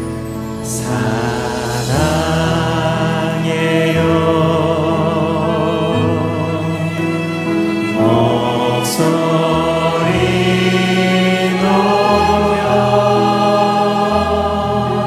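Large mixed church choir and a worship leader singing a Korean praise chorus over orchestra and band accompaniment, passing straight into the next song partway through. Two bright crashes ring out, about a second in and again near nine seconds.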